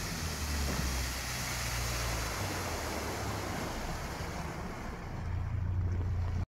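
Outboard-powered cabin motor boat passing on a river: a low engine drone that grows a little louder near the end, under a steady rushing hiss of wind and water.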